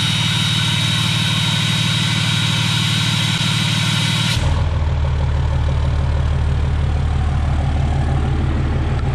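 5.9 Cummins turbodiesel idling cold with the VGT exhaust brake engaged in warm-up mode, making a steady high whistle over a hiss. About four seconds in the exhaust brake is cut out: the whistle stops abruptly and the engine settles to a deeper, plainer idle.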